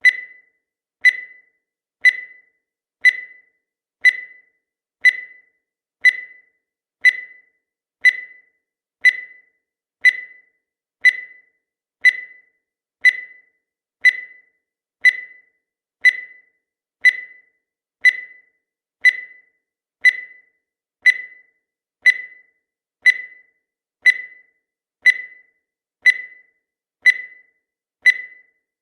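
Countdown timer sound effect: a short, high beep once every second, each one dying away quickly.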